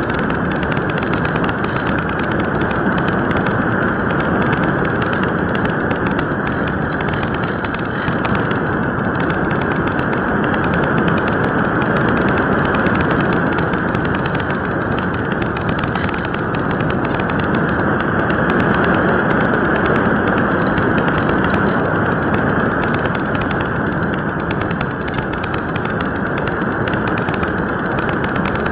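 In-flight noise of a Pelikan Swift RC electric glider picked up by its onboard keychain camera: a steady, loud rush of air over the airframe, with no breaks or changes.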